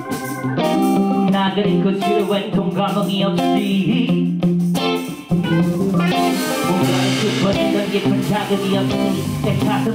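Live blues band playing, with electric guitars carrying a riff over bass and drums. A little after halfway the band comes in fuller, with cymbals.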